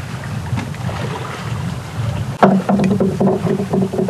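Wind buffeting the microphone over sea and boat noise. About two and a half seconds in, a sudden rapid pulsing buzz with clicks starts from the Daido Hydra SW 1000 spinning reel and keeps going.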